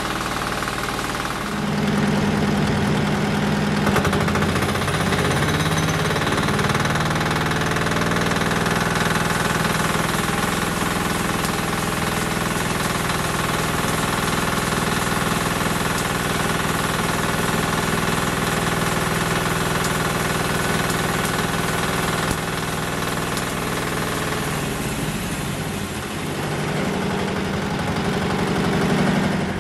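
Homemade bandsaw mill running under its own engine, driving the band blade round its wheels. The engine picks up about a second and a half in and holds a steady speed, eases off a little near the end, then picks up again.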